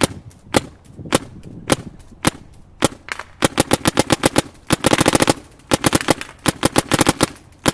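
Planet Eclipse Etha 2 paintball marker firing on compressed air: single sharp shots evenly spaced about twice a second, then from about three seconds in quick strings of shots at around ten a second.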